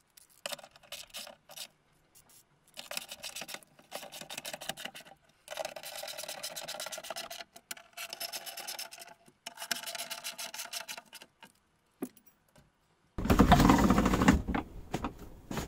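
Ratchet wrench clicking in quick runs while the nuts on the round cover plate of a VW T3 seat swivel base are tightened. About 13 seconds in, a loud, heavy knock and rattle as the metal-framed seat is set down onto the base.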